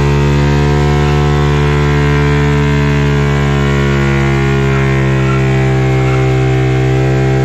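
Yamaha R15 V3's single-cylinder engine held at a steady high rev during a burnout, a loud, unbroken drone with an even pitch throughout.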